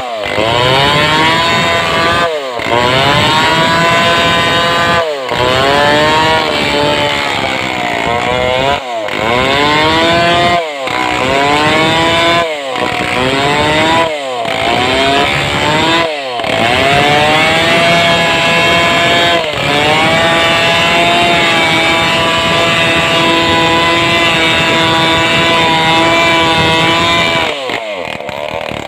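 Stihl chainsaw engine running hard while sawing a large sengon log. Its pitch sags under load and climbs again over and over, with brief breaks. Near the end it runs steady, then drops to a lower speed.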